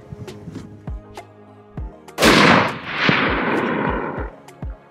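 A single shot from a .270 WSM hunting rifle about two seconds in, its report rolling on and dying away over about two seconds, over background music with a steady beat.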